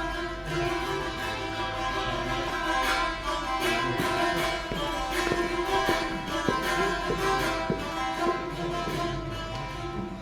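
Instrumental saz music: quick plucked notes over steady held tones.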